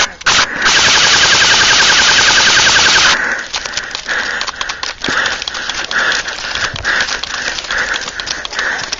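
Airsoft rifle firing on the gun-camera's own gun: two short bursts, then one long rapid-fire burst of about two and a half seconds. After it come lighter scattered clicks and rustling.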